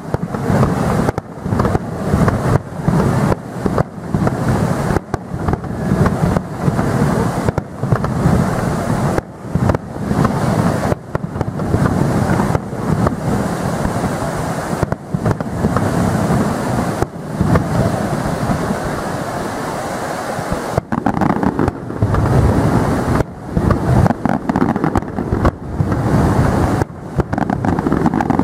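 Fireworks display going off in a near-continuous loud rumble of booms, with frequent short dips between bursts.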